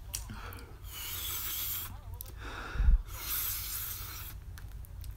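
A person breathing hard through the mouth in two long hissing breaths against the burn of extra-spicy ramen noodles, with a short dull thump about three seconds in.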